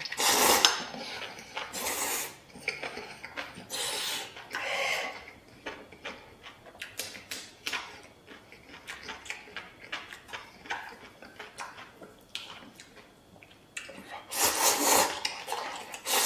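A person slurping noodles in loud bursts, several in the first five seconds and a longer run near the end, with chewing and small clicks of chopsticks against a metal bowl in between.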